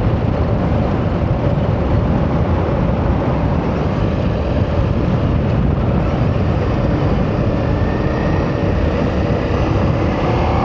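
Ducati Multistrada motorcycle riding steadily, its engine running under a constant rush of wind and road noise on the bike-mounted microphone.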